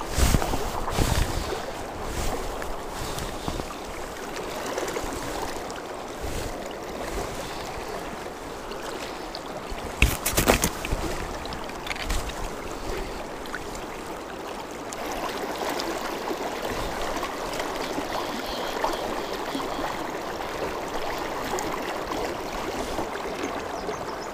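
Shallow river water rushing and splashing around a wading angler, a steady noise, with a few sharp knocks just after the start and again about ten seconds in.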